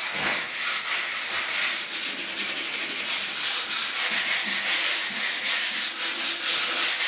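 80-grit sandpaper rubbed by hand over a stained and polyurethaned fiberglass door in repeated back-and-forth strokes, a steady scratchy hiss. It is a light scuff-sanding to take off flaking stain and poly and give the surface a tooth for primer.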